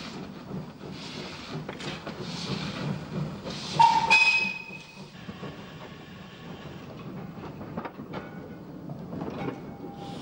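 Ex-Midland Great Western 0-6-0 steam locomotive working a goods train: slow exhaust chuffs about one every second and a quarter, a short whistle about four seconds in, then the goods wagons rolling by with a steady rumble and scattered clanks.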